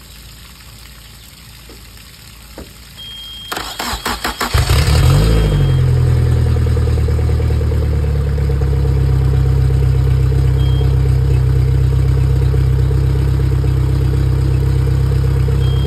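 Suzuki DF140 four-stroke outboard on flushing muffs being started: faint water running at first, then the starter cranks in a quick stutter about three and a half seconds in, with a high steady beep, and the engine catches a second later and settles into a steady idle.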